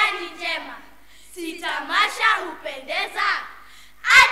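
A group of children's voices in unison, singing or chanting, in short phrases separated by brief pauses.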